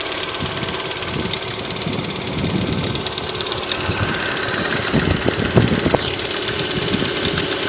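2008 Lada Priora engine running with a fast, even ticking from its hydraulic valve lifters. They tick while the engine is not yet warm, and the owner says the ticking fades once it reaches about 90 °C.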